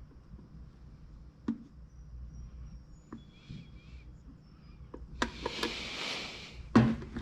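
Scattered knocks and clicks of tools and parts being handled during motorcycle service work. A short hiss comes just past the middle, and a loud knock comes near the end.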